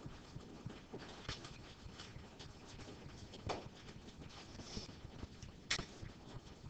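Faint scattered clicks and taps over low room noise, with a few sharper knocks, such as small handling sounds in a quiet classroom.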